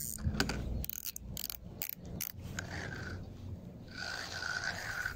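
Spinning fishing reel clicking and ratcheting as a hooked carp is played on light tackle, a quick irregular run of clicks in the first two seconds or so, then quieter.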